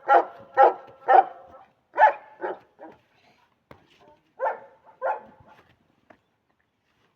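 A dog barking, about eight barks in short runs roughly half a second apart, with a pause in the middle; it falls quiet after about five and a half seconds.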